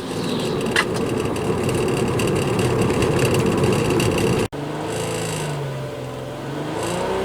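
Misfiring 2.8 VR6 engine of a 2003 Volkswagen Jetta GLI running; after an abrupt break about four and a half seconds in, it revs, its pitch sinking and then climbing again. The misfire comes from a failing ignition coil pack.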